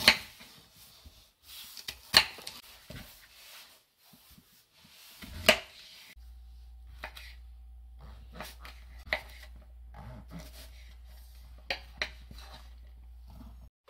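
Knife cutting onion, squash and garlic on a wooden cutting board: three sharp chops in the first six seconds, then lighter, scattered cuts.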